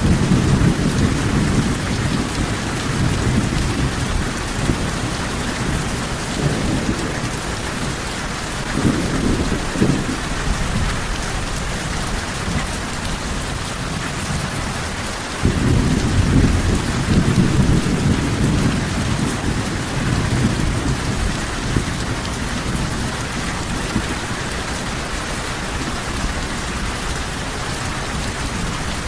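Steady rain with rolling thunder: a low rumble at the start, a short one about nine seconds in, and a louder rumble that begins suddenly about halfway through and fades over a few seconds.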